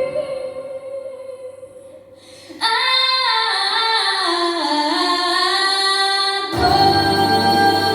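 Music with a female voice: a held note fades out, then about two and a half seconds in a lone voice sings a slow line that steps downward, and fuller accompaniment comes in near the end.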